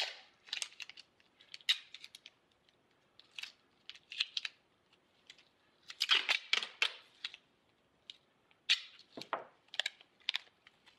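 Black adhesive tape being pulled off the roll, cut and handled: short, crackly rips and snips in scattered bursts, busiest about six seconds in and again near nine seconds.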